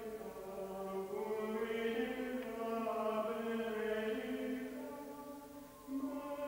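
Background music of slow choral chant: long, held vocal chords shifting slowly from one to the next. They fade out near the end, and a new phrase with a wavering high tone begins.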